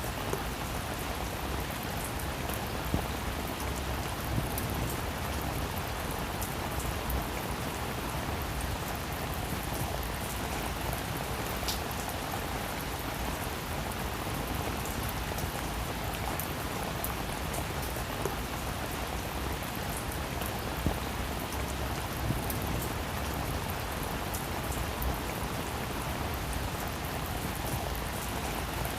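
Steady rain falling on a roof, a dense even patter with a few louder single drops ticking out of it.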